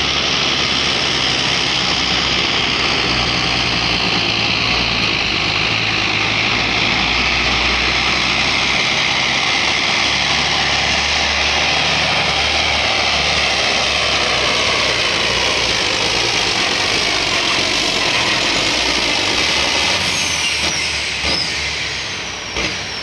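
Turbocharged 640-cubic-inch diesel of a John Deere 6030 Pro Farm pulling tractor running flat out under load while dragging the weight sled, loud with a strong high-pitched turbo whine. The pitch slowly falls as the engine is pulled down, and the sound fades over the last few seconds as the pull ends.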